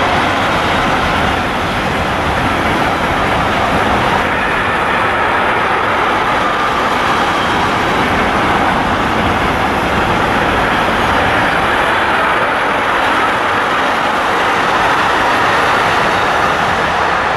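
Wagons of a long container freight train rolling past: a loud, steady rumble and rush of wheels on rails.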